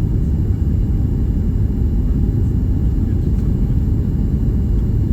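Steady low rumble of a Boeing 737 MAX 8 in flight, the engine and airflow noise heard aboard the airliner.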